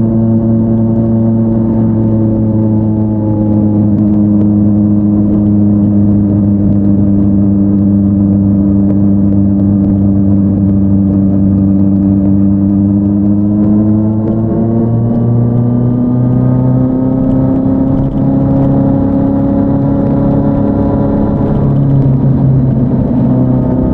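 Kawasaki Z900 inline-four with an SC-Project S1 aftermarket exhaust, heard while riding. The engine note sinks slowly as the bike rolls along for about thirteen seconds, then climbs as it accelerates. The pitch shifts in steps twice near the end.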